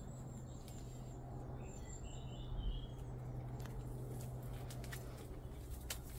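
A few faint bird chirps, mostly about two seconds in, over a steady low hum, with a few sharp clicks near the end.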